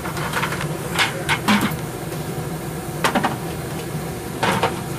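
Several sharp metal clinks and knocks as things are handled and set down, over the steady noise of a running forge.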